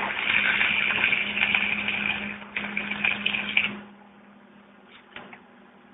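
Electric welding arc crackling and sizzling as a welding rod burns a hole through metal. It breaks off briefly about two and a half seconds in, strikes again, and stops about four seconds in, over a steady low hum.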